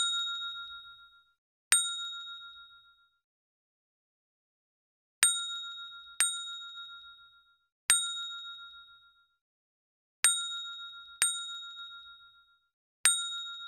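A single high bell-like chime note struck about eight times at uneven gaps, each strike ringing out and fading over about a second, with dead silence between.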